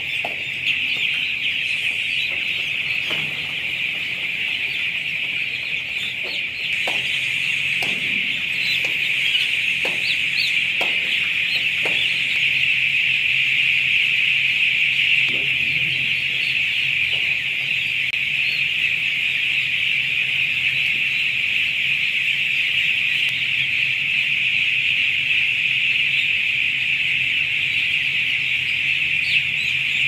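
A dense, steady chorus of peeping from thousands of young broiler chicks crowded on a shed floor, high-pitched and unbroken, with a low hum underneath.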